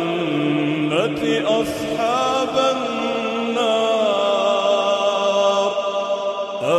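A solo male voice reciting the Quran in Arabic in a slow, melodic chant, holding long drawn-out notes with ornamented bends in pitch. A new phrase rises in about a second in and another near the end.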